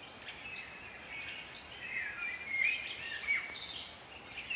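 Songbirds singing: a run of short chirps and warbling phrases over a faint outdoor background hiss.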